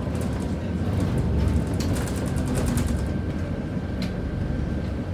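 Cabin of a Scania K94UB city bus under way: its rear-mounted diesel engine and road noise running steadily as a deep rumble, with a thin steady high tone over it. About two seconds in, the fittings rattle rapidly for about a second, and a single click comes about a second later.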